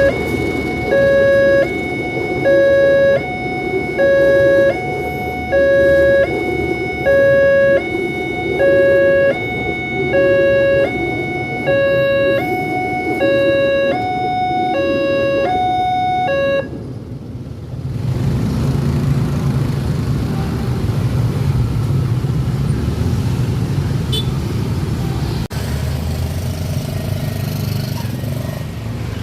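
Railway level-crossing warning siren sounding an electronic two-tone alarm that steps back and forth between a lower and a higher tone. It cuts off suddenly a little past halfway, leaving a steady low rumble.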